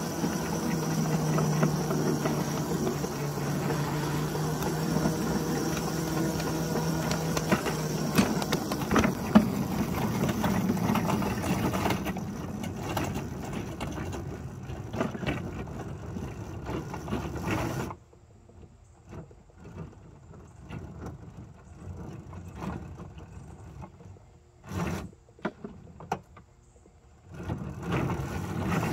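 Ride-on battery-electric locomotive running along the track: the traction motor and drive hum with a steady tone while the wheels click and rattle over the rails. About two-thirds of the way through the running sound drops away sharply, leaving quieter clicks and a couple of short knocks.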